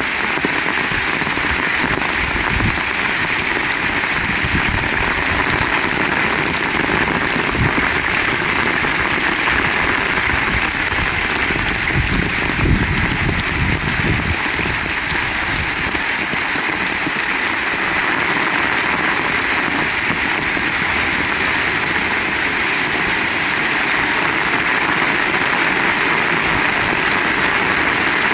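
Heavy rain pouring steadily, a dense even hiss. Through the first half there is also an irregular low rumble of strong gusting wind.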